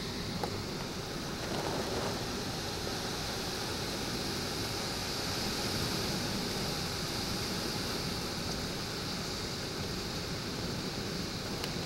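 Heavy thunderstorm rain pouring down in a steady, even hiss on pavement and roofs.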